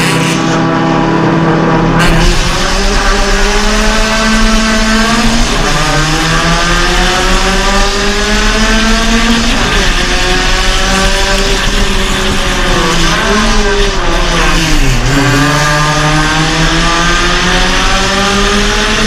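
Suzuki Swift Sport's four-cylinder race engine at a race start. It holds steady revs for a couple of seconds, then accelerates hard with the pitch climbing through each gear and falling at each upshift. Near the end it drops off and climbs again as the car brakes for a corner and pulls out of it.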